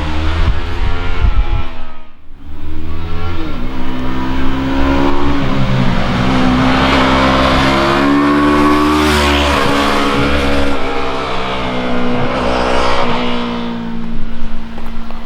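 2020 Yamaha R3's parallel-twin engine through its stock exhaust, running under throttle. The engine note drops away briefly about two seconds in, then climbs steadily in pitch for a few seconds and holds high.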